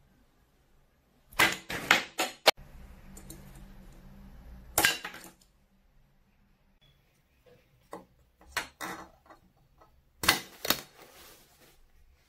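Several short bursts of sharp clicks and knocks, a few strokes each, with a faint low hum from about two and a half to five seconds in.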